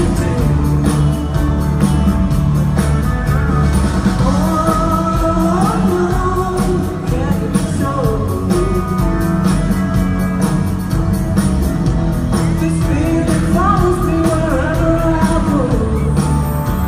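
A rock band playing live, heard from the audience in an arena hall, with melody lines over a steady full-band backing.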